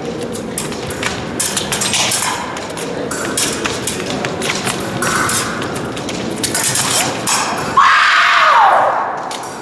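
Épée bout on the piste: rapid footwork thumps and sharp clicks of blade contact over hall noise. About eight seconds in comes a loud shout, held for over a second, that falls in pitch as it ends.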